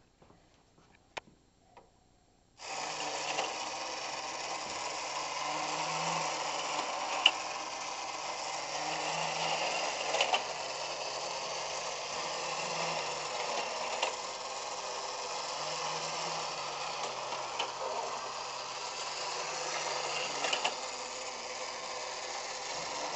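Technofix 308 tin toy parking garage running: after a few faint clicks, its mechanism starts suddenly about two and a half seconds in. It then keeps up a steady rattling mechanical whir as the tin cars run along the metal track, with occasional sharp clicks.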